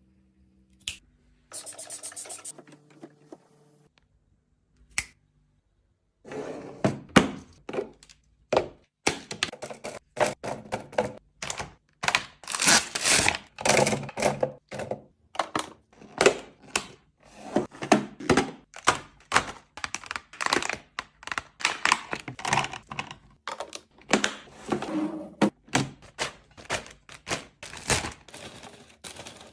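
Fridge restocking: a rapid, irregular string of clicks, taps and knocks as containers, lids and packaging are handled and set down, starting about six seconds in after a brief tone and a single click.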